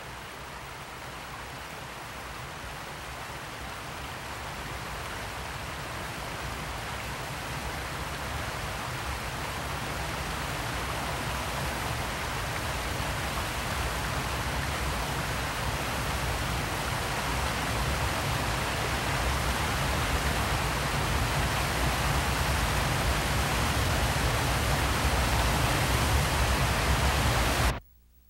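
A steady rushing noise with a deep rumble underneath, growing steadily louder and then cutting off abruptly near the end.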